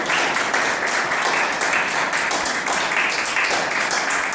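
Small audience applauding, steady clapping of many hands.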